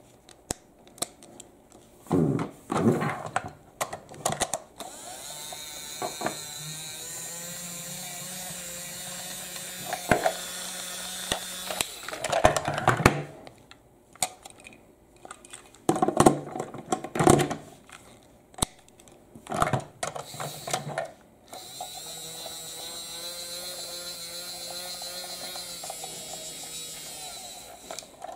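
A battery-powered Thomas the Tank Engine toy's small electric motor whirring steadily, switched on twice for several seconds each time. Sharp plastic clicks and knocks from the toy's parts being handled come in between, and these are the loudest sounds.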